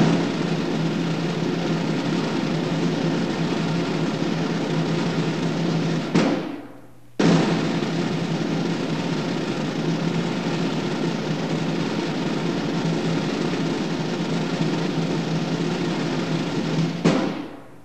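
Highland bagpipes playing, their drones holding a steady low tone under the chanter. The pipes stop about six seconds in, start again a second later, and stop once more near the end.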